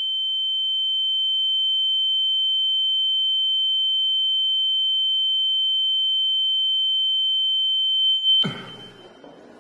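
A steady, high-pitched electronic ringing tone, a film sound effect for ringing ears and dizziness, swelling up over the first couple of seconds and then holding. Near the end it cuts off suddenly at a short, loud burst of noise.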